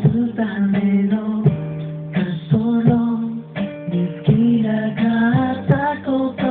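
A song with acoustic guitar strummed in steady chords and a voice singing.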